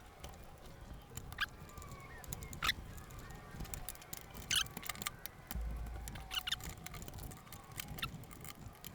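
Faint, scattered clicks and taps of hand tools and metal parts being handled during work on a motorcycle, with a low rumble starting about halfway through.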